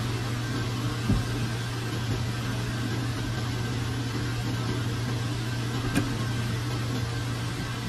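Steady low mechanical hum of an aquarium filter running, with two short knocks, one about a second in and one near six seconds in.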